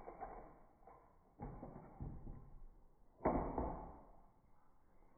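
Hot Wheels die-cast cars clattering and knocking along a plastic track, slowed down: a string of sudden hits, the loudest about three seconds in, each trailing off into a rumble.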